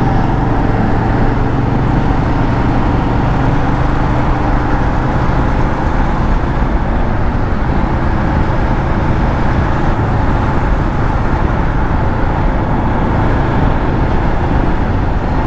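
A Royal Enfield Himalayan motorcycle running at a steady cruise, heard from the rider's camera, with wind rushing over the microphone. The engine note holds steady, with no revving.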